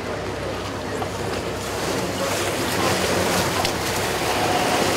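Water washing and churning along a boat's hull while a motorboat engine runs, growing louder about two seconds in as another motorboat passes close alongside.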